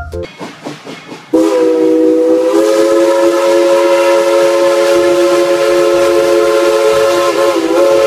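Steam locomotive's whistle blowing one long blast, a chord of several steady notes, starting about a second in and dipping briefly near the end.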